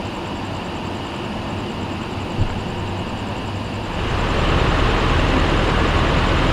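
Steady low vehicle and engine rumble with no voices, stepping up louder about four seconds in; a single short knock about two and a half seconds in.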